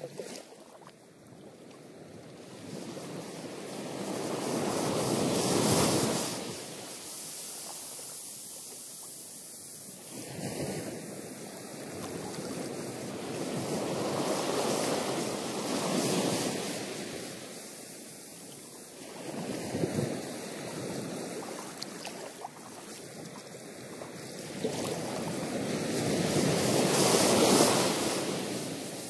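Ocean surf washing over and breaking around coastal rocks, its rush swelling and falling back in slow surges every several seconds.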